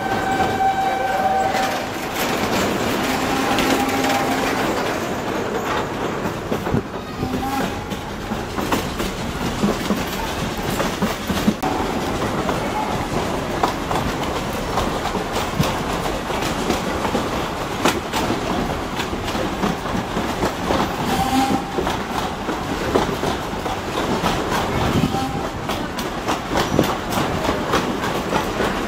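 Steam train carriage rolling along, its wheels knocking over the rail joints in a dense run of irregular clicks. The locomotive's whistle sounds at the start and cuts off about a second and a half in.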